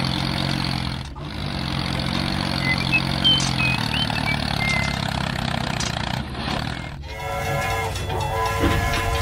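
A steady low engine drone, then about seven seconds in a train horn sounding in long blasts with short breaks.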